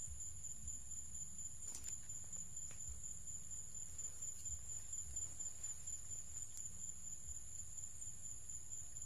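Steady high-pitched insect chorus, with a low rumble underneath and a couple of faint clicks.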